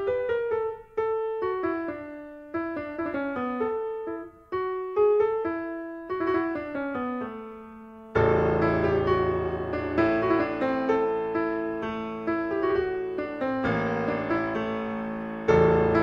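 Background piano music: a gentle melody of single notes, joined about halfway through by a fuller accompaniment with deeper notes.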